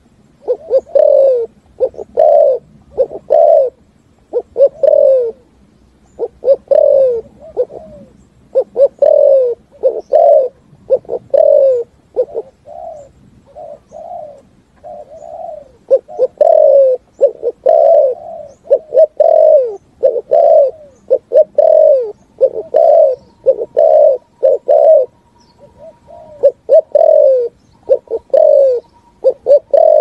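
Spotted dove (cu gáy) giving its fast 'thúc gù' cooing: short, low coos repeated over and over, softer for a few seconds near the middle.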